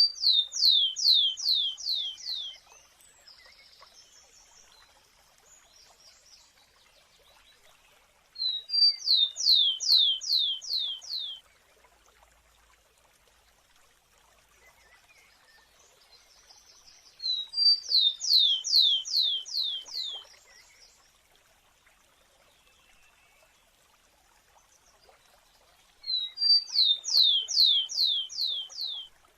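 Rufous-collared sparrow singing the same song four times, about nine seconds apart: one or two short high notes, then a series of about six downward-slurred whistles lasting about two seconds.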